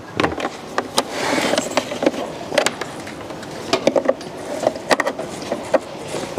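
A series of sharp, irregular clicks and knocks over a steady background hiss.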